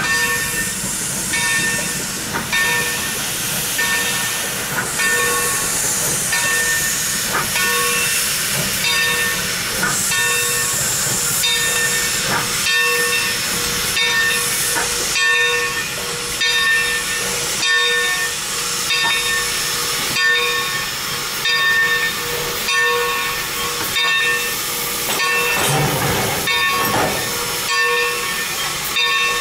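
Steam locomotive bell on a 1917 Baldwin 2-8-2 ringing steadily, about one stroke a second, over a continuous hiss of steam as the engine moves slowly. A brief louder rush of noise comes near the end.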